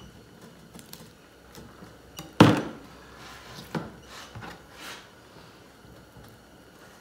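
A few dull knocks on the table top as the fillet knife is laid down and the walleye is handled, the loudest about two and a half seconds in, with softer handling noise between them.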